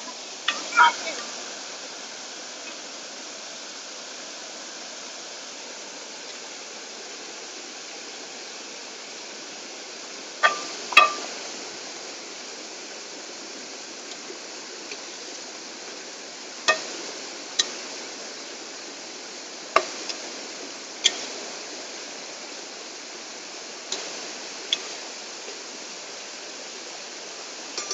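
Steady rushing of a stream and waterfall, with sharp metallic clinks of a steel ladle striking and scraping a metal cooking pot while onions are stirred. The clinks come scattered and irregular, sometimes two close together, about a dozen in all.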